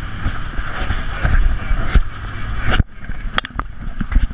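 Steady noise of a dive boat's engine and wind on deck, dropping away sharply about three seconds in, followed by a few sharp knocks and clicks of dive gear being handled close to the microphone.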